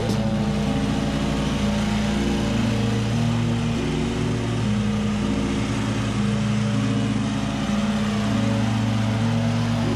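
Scag V-Ride stand-on mower running steadily at cutting speed, engine and blades working through tall grass.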